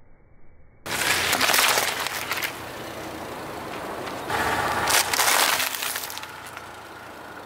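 Car tyre crushing whole watermelons, a sudden loud splitting and squashing about a second in. Around four and a half seconds in comes a second loud bout of crackling crunching as a tyre rolls over a brittle snack.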